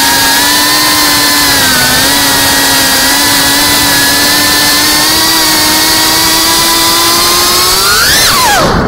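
Brushless motors and propellers of a GEPRC Cinelog 35 quadcopter FPV drone, whining steadily in cruise as picked up by the onboard camera. Near the end the pitch rises sharply with a throttle punch, then drops away.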